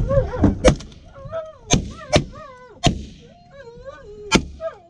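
A volley of about five shotgun blasts from several hunters, unevenly spaced over four seconds, shooting at a flock of lesser and cackling Canada geese, with the geese honking between the shots.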